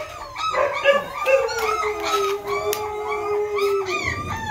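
Kanni puppies whining and yelping in many short, overlapping rising-and-falling cries, with one long, steady, lower howl-like cry held for a couple of seconds that stops about four seconds in.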